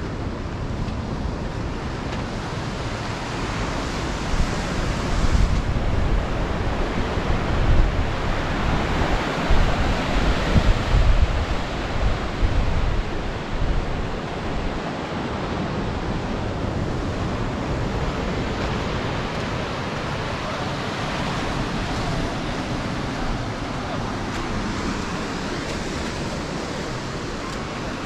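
Ocean surf breaking and washing on a beach, with wind buffeting the microphone, heaviest in the first half.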